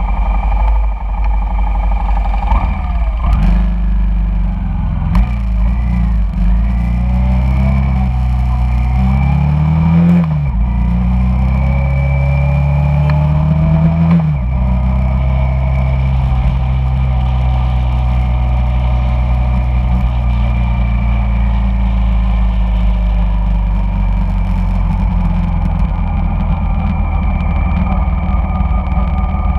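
Honda Shadow cruiser's V-twin engine idling at a stop, then pulling away about three seconds in. Its pitch rises, drops sharply at a gear change about ten seconds in, rises again and drops at a second shift a few seconds later, then runs steadily at cruising speed.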